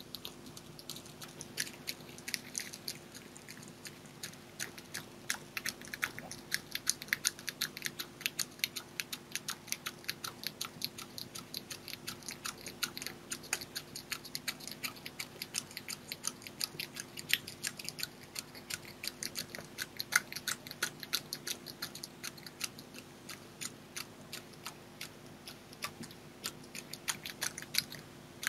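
Red fox chewing and crunching food, a rapid, uneven run of sharp clicks, several a second, over a faint steady low hum.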